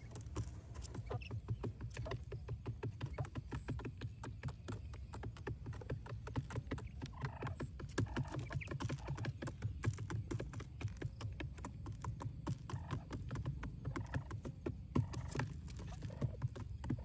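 Rapid, irregular tapping and clicking, with a few faint chirps around the middle.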